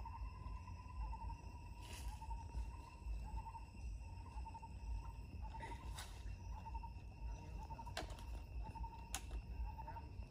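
Forest insects calling: a steady whine with brighter pulses about once a second, over a steady higher buzz and a low rumble. A few faint clicks stand out now and then.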